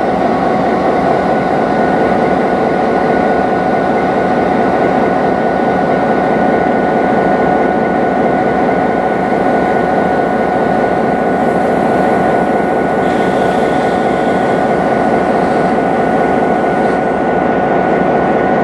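NSWGR 42 class diesel-electric locomotive, with its EMD V16 two-stroke engine, standing and idling. It makes a constant engine drone with a steady high whine over it.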